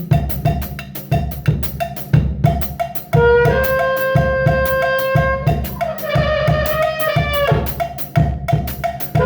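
A drum kit played in a steady, quick beat along to a backing track of recorded music, with held melodic notes over the bass.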